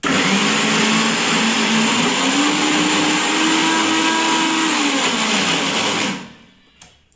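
Maharaja Whiteline mixer grinder running with its small steel jar, grinding green peas with green chillies and ginger. The motor's hum rises in pitch about two seconds in. It is switched off about six seconds in and winds down.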